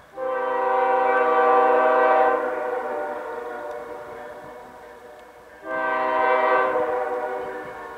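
Diesel locomotive air horn sounding two long blasts, the first starting right away and the second near the end. Each is a steady multi-note chord that trails off slowly after it is released.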